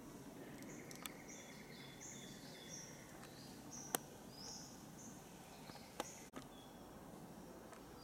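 Rainforest ambience: many short, high-pitched chirping calls repeating in overlapping series at a few different pitches, with three sharp clicks, the loudest about four seconds in.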